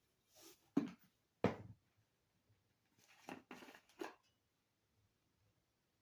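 A few short knocks and rattles of salt and pepper being added to a bowl of salad dressing, with one firmer thump about a second and a half in and a quick run of strokes around the three-to-four-second mark.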